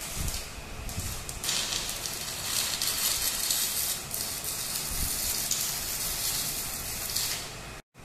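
Stick (shielded metal arc) welding arc crackling and sizzling steadily as the electrode burns along a vertical joint. The sound cuts off suddenly just before the end.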